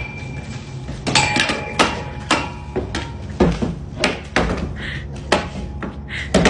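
A dog's stick knocking and clattering against a wooden fence and its metal post as the dog tugs at it: a dozen or so sharp, irregular knocks.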